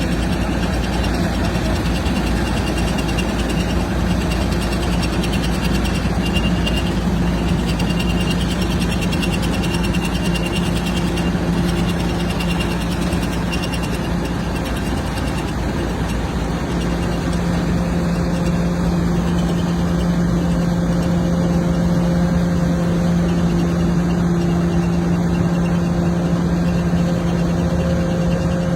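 Engine of a rice harvesting machine running at a steady speed, a constant drone with an even pitch and no break.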